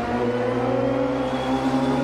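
Kawasaki Z900's inline-four engine pulling in gear, its note rising steadily as the bike accelerates.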